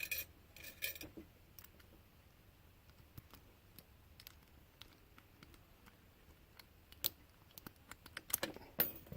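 Faint, scattered small metallic clicks and scrapes of a key being worked and turned in a lock, with a quick cluster of clicks near the end.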